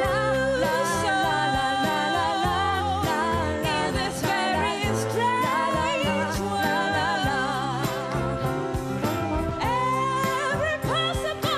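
Two women singing a pop ballad as a live duet, their held notes wavering with vibrato, backed by grand piano, drums and trombone.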